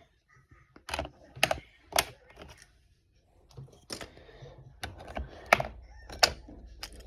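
Plastic keycaps being pried and popped off a computer keyboard: a string of about eight sharp clicks and snaps at an irregular pace.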